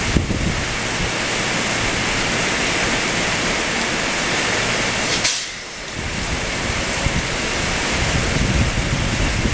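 Heavy rain pouring down in a steady loud hiss, which dips briefly about five seconds in.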